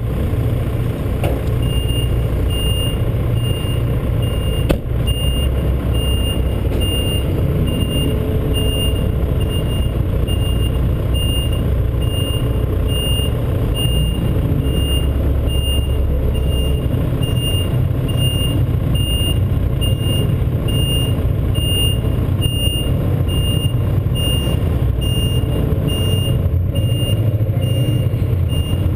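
A vehicle's engine rumbling steadily, with a reversing alarm beeping evenly and without pause from about two seconds in.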